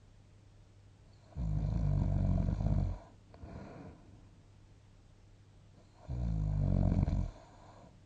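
A sleeping person snoring: two loud, deep snores about a second and a half long, some four seconds apart, the first followed by a softer breath.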